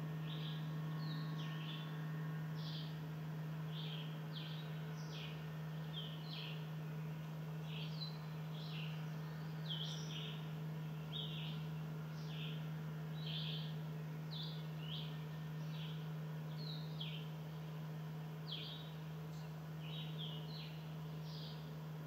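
Small songbirds chirping in a steady series of short, sharp calls, one or two a second, over a steady low hum.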